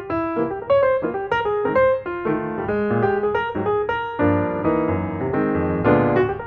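Background piano music: a quick, flowing run of single notes, with fuller chords from about four seconds in.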